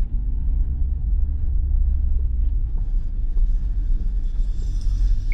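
Car driving straight ahead: a steady low rumble of engine and road noise heard from inside the cabin.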